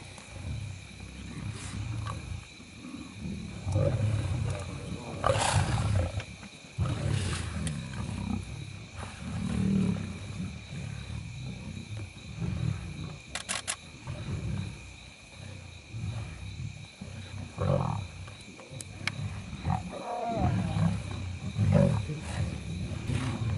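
A pride of lions growling over and over in low rumbles while crowded together feeding and squabbling. A few quick sharp clicks come about halfway through.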